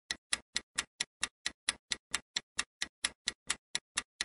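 Quiz countdown-timer sound effect: even clock-like ticks, a little over four a second.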